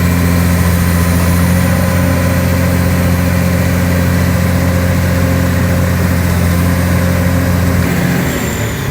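Komatsu long-reach excavator's diesel engine running steadily at raised revs, dropping back about eight seconds in.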